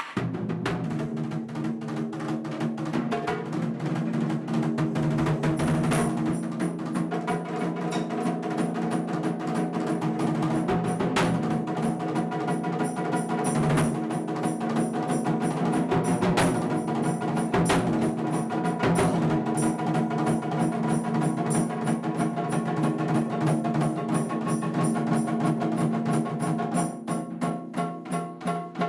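Japanese taiko drums played live in a fast, dense rhythm, with sharp wooden clicks among the drum strokes; the strokes thin out near the end.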